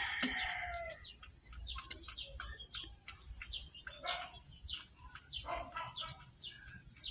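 Chickens calling: a rooster's crow trails off about a second in, followed by many short clucks and chirps, over a steady high-pitched hiss.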